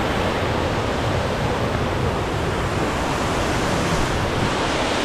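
Large waterfall on a mountain stream, a steady, loud rush of falling water.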